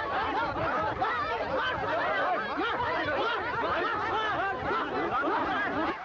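A large crowd of people shouting and calling out all at once while running, many overlapping voices rising and falling in pitch.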